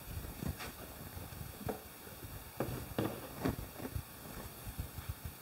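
Irregular soft knocks and thumps, several a second at times, with faint rubbing between them: handling noise while wood stain is wiped onto a plywood tabletop.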